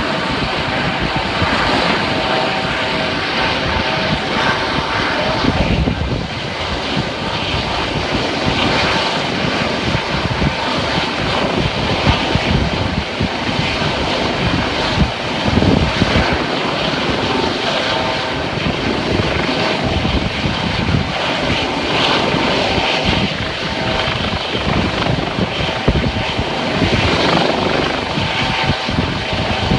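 U.S. Coast Guard rescue helicopter hovering overhead at night, its rotor and turbine engine running loud and steady, with a steady whine over the rotor noise.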